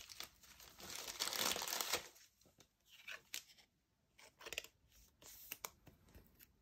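Thin plastic card sleeve crinkling, loudest for about two seconds as a sleeve is pulled off a stack, then short rustles as a trading card is slid into it.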